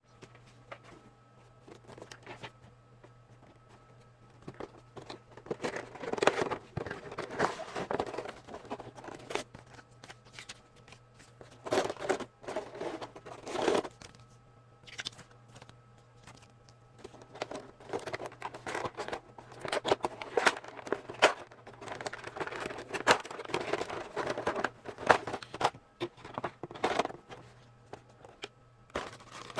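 Toy packaging being handled and opened: crinkling, rustling and tearing in irregular bursts, over a faint steady hum.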